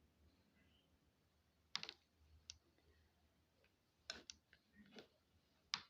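Faint, scattered clicks and light taps, about half a dozen, from handling a bowl and the grated sweet potato while squeezing out its juice, over an otherwise near-silent room.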